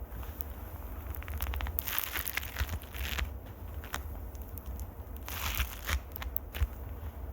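Fingers scratching and rubbing directly on a microphone, an irregular crackly scratching with scattered clicks over a deep handling rumble.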